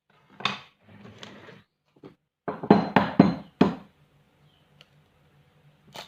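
Kitchen clatter: a few short knocks and scrapes of utensils and bowls, with a quick run of loud hits about two and a half seconds in.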